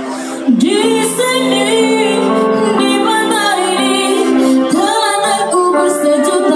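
A female singer sings into a microphone over backing music, her voice coming in about half a second in with long, wavering held notes over sustained chords.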